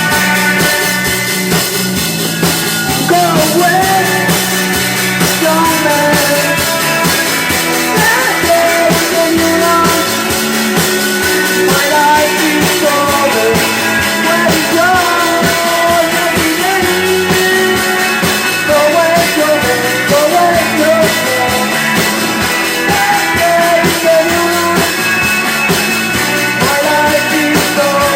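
Rock song: a sung melody over electric guitars and a drum kit, with the voice coming in about three seconds in.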